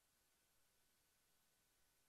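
Near silence: a faint steady hiss with a thin steady high tone.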